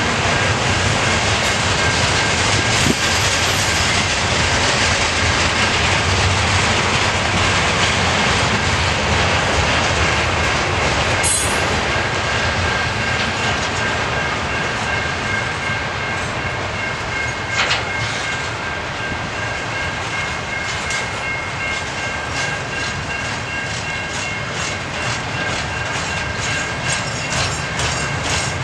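Double-stack intermodal container cars rolling steadily past on the rails: a continuous rumble and rattle with a thin steady high wheel squeal and occasional sharp clanks, the clearest about eleven seconds in.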